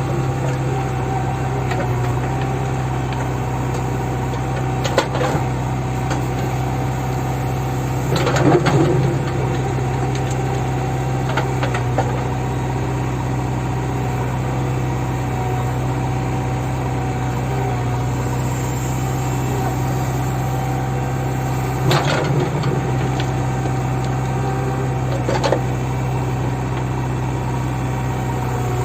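JCB backhoe loader's diesel engine running steadily with a constant low drone, with a handful of short sharp knocks scattered through, the loudest cluster about a third of the way in.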